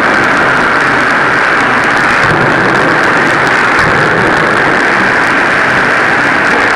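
Pneumatic forging hammer running: a loud, steady hissing machine drone with no distinct separate blows.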